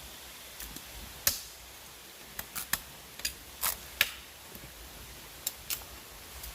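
Live lobsters being handled: a dozen or so sharp, irregular clicks and taps from their shells and flicking tails, the loudest a little over a second in and at about four seconds.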